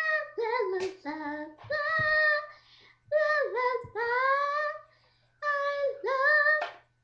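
A child's high voice singing a wordless tune in several short phrases of held, gliding notes, with brief pauses between them.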